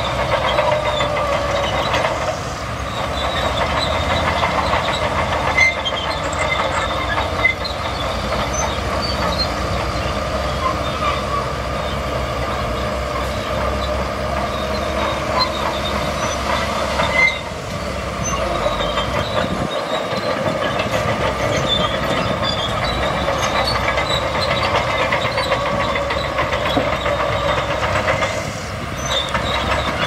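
Hyundai Trago dump trucks running as their tipper beds rise and sand slides out. Steady heavy-vehicle noise with scattered high squeaks and clinks, dipping briefly twice.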